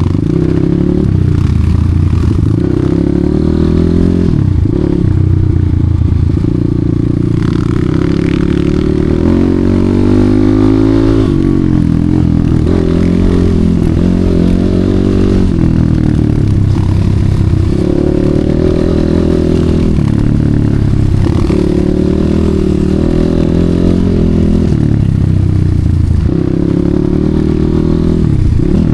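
Enduro motorcycle engine running under load, its pitch rising and falling again and again with the throttle.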